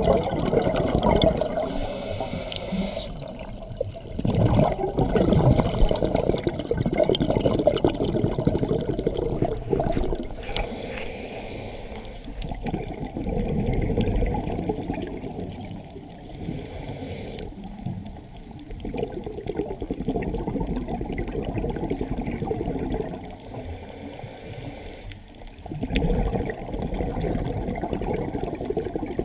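Scuba regulator breathing underwater, heard from the diver's own mouthpiece: a short hiss on each inhale followed by several seconds of gurgling exhaust bubbles, about four breaths in all.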